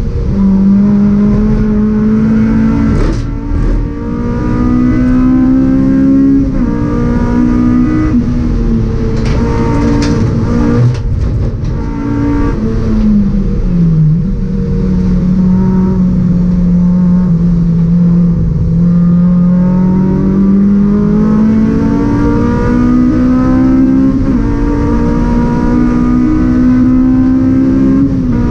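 In-cabin sound of a 2004 Honda Civic Type R EP3 race car's four-cylinder engine at racing speed, the pitch rising and falling with throttle and gear changes. The pitch drops about 13 seconds in and stays low for a few seconds, then climbs steadily through the last nine seconds.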